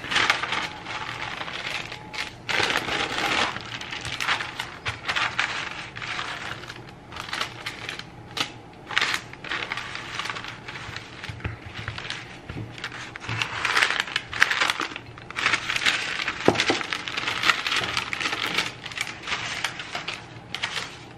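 Pizza dough being rolled out with a glass bottle over parchment paper on a stone counter: irregular crinkling and rustling of the paper, with clicks and knocks of the glass bottle.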